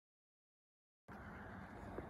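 Dead silence for about a second, then faint, steady outdoor background noise cuts in suddenly, mostly low-pitched and without any distinct source, with one small click near the end.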